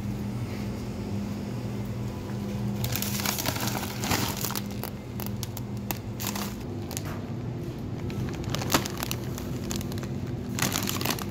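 A plastic potato chip bag crinkling as it is picked up and handled, in bursts about three seconds in and again near the end, over a steady low hum.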